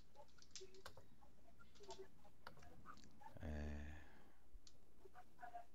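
Faint typing on a computer keyboard: scattered, irregular keystrokes. A short hum from a man's voice comes about three and a half seconds in.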